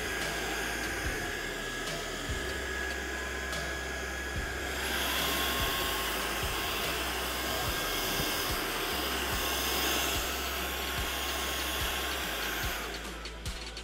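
Ultenic U11 cordless stick vacuum running as it is pushed across a tiled floor: a steady rush of air with a thin whine, whose pitch shifts about five seconds in. The sound drops away just before the end.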